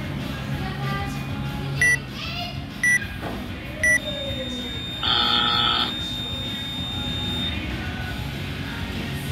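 Workout timer counting down the last seconds: three short beeps a second apart, then a longer, louder end-of-time buzzer about five seconds in, marking time called on the workout. Background music plays throughout.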